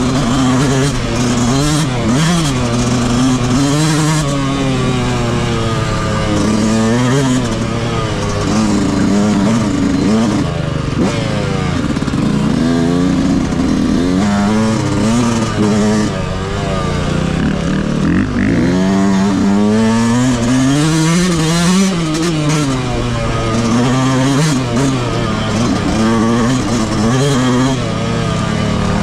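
Yamaha YZ125's single-cylinder two-stroke motocross engine under way off-road, its revs climbing and dropping back over and over, every second or few, as the rider works the throttle and gears.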